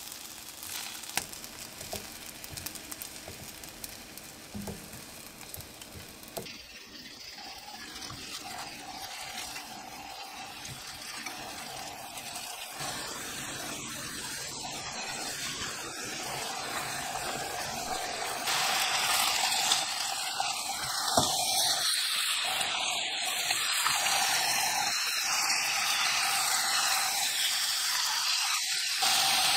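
Food frying in oil in a pan: a quieter sizzle for the first few seconds, then chicken thigh pieces frying skin-side down, their sizzle building and jumping louder about two-thirds of the way through.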